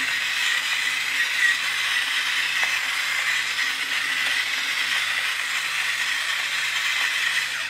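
Battery-powered electric salt grinder running steadily, its small motor whining as it grinds rock salt, then switching off suddenly at the end.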